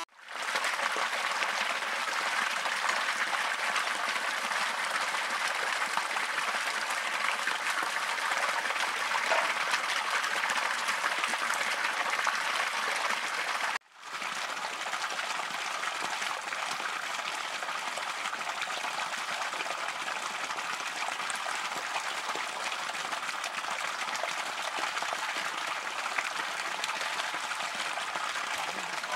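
Steady rushing of shallow water running along an earth channel, with a short break about halfway through.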